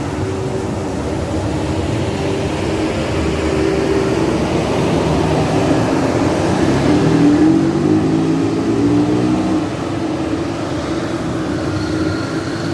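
A big tour bus's diesel engine pulling hard up a steep hairpin climb. It grows louder to a peak about seven to eight seconds in, its note sliding down in pitch as it goes by, then drops away.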